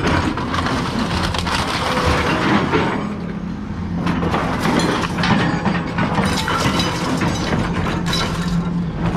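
Scrap metal crunching and clattering as it is pulled off a trailer, over the steady drone of a running engine.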